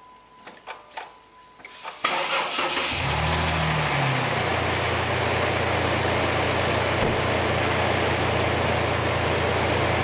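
A few light clicks, then about two seconds in a Dodge Nitro's engine cranks briefly on its starter, catches with a quick rise and fall in revs, and settles into a steady idle. The battery is dead, and the start comes from a portable jump-starter pack clamped to it.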